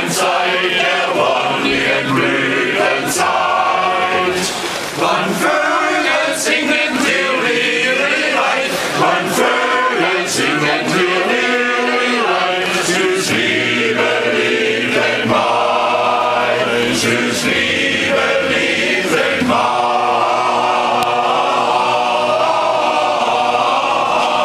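Men's choir singing unaccompanied. Near the end it holds one long chord.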